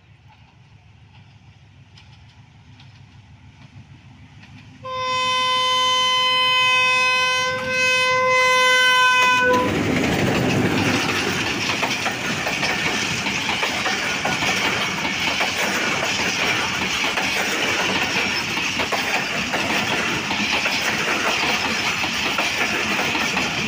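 A Pakistan Railways diesel locomotive hauling an express passenger train approaches with a low, rising rumble, then sounds its multi-tone air horn in two long blasts about five seconds in. From about ten seconds in it passes at speed, and the locomotive and the coaches' wheels on the rails make a loud, steady rushing rumble.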